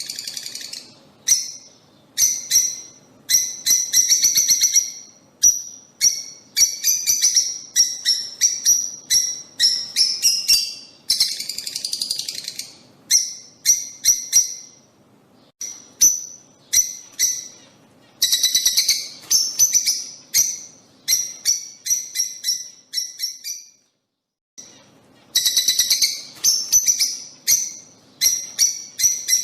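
A flock of lovebirds chattering: rapid, high-pitched chirps and calls in quick bursts, with one brief pause a little over three-quarters of the way through.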